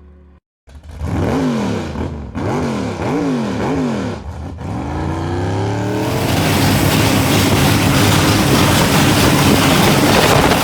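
Rock bouncer's engine revved hard several times in quick succession, then a long rising pull as it accelerates. From about six seconds in this becomes a loud, steady wash of engine noise at high throttle.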